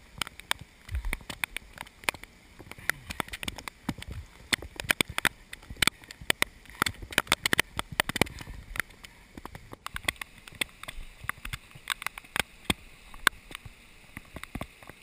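Rapid, irregular knocks and scrapes of a camera being jostled as its wearer scrambles up a wet rock ledge, over rushing flood water.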